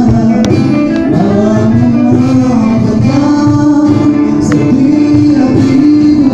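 Buskers performing a song live: a voice sings long held notes over instrumental accompaniment.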